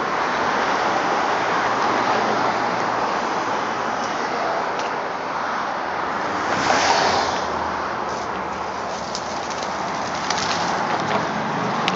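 Steady rushing noise of wind and road, with a brief louder gust about seven seconds in.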